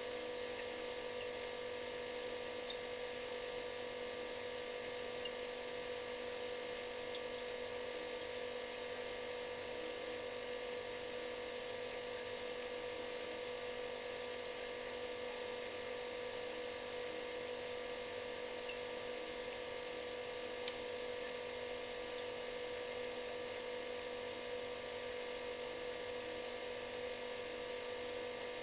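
Refrigerator running with a steady buzzing hum over a faint even hiss, unchanging throughout.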